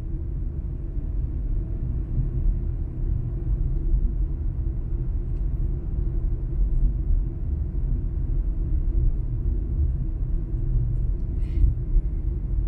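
A car on the move: a steady low rumble of road and engine noise.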